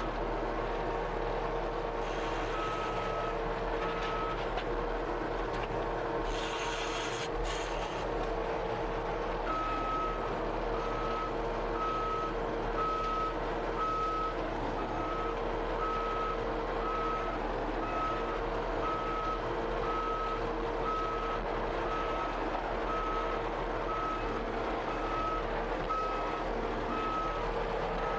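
Skid steer loader running steadily while reversing, its backup alarm beeping at about one beep a second, with two short hisses in the first eight seconds.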